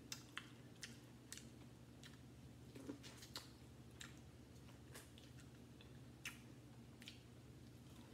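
Chewing and biting into corn on the cob, heard as faint, sharp wet mouth clicks and smacks at about one or two a second over a low steady hum.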